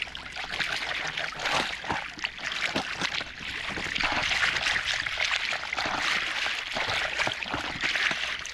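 Small waves of shallow seawater lapping and splashing right against the microphone: a steady wash of water broken by many small splashes.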